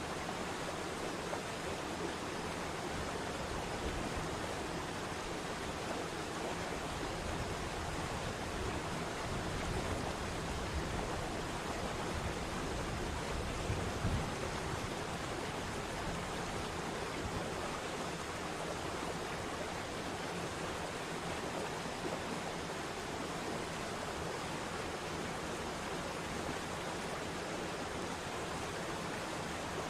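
Waterfall: a steady rush of falling water, briefly louder in the low end about fourteen seconds in.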